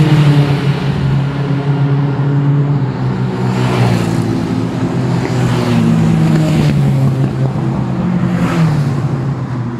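Race car engines going past at low speed under a safety car, a continuous low engine note whose pitch shifts up and down. Louder swells come about 4, 6.5 and 8.5 seconds in as cars go by.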